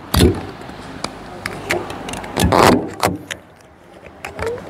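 Handling noise from a handheld microphone being fiddled with by hand: scattered clicks and knocks, with a louder rustling scrape a little past halfway.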